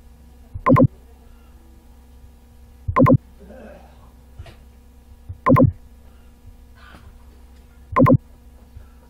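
A short, loud buzzing tone sounding four times, about two and a half seconds apart, over a low steady hum.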